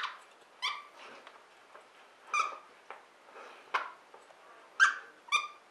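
Squeaker in a plush fox toy squeaking as a Basset Hound bites and chews it: about six short squeaks at irregular intervals.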